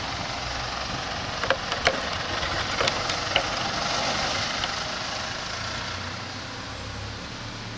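A few light knocks, as cherries drop from a wire-cage roller picker into a perforated plastic crate, over a steady background noise.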